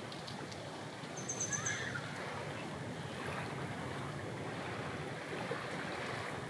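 Seaside ambience: a steady rush of small waves and wind on the microphone, with a short run of high-pitched chirps about a second in.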